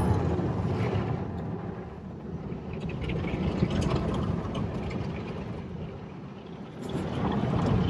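Rotating cloth brushes of an automatic tunnel car wash scrubbing over a car's windshield, heard from inside the cabin as a steady swishing rumble that swells and fades as the brushes pass.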